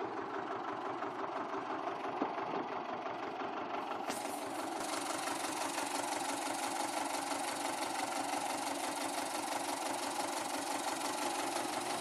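A small hatchback's engine idling steadily.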